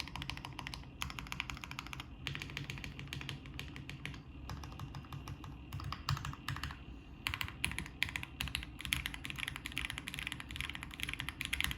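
Typing on a Qwertykeys QK65 mechanical keyboard with lubed and filmed Gateron Ink Black V2 linear switches in an aluminium plate and GMK keycaps. Fast runs of keystrokes come with short pauses between them.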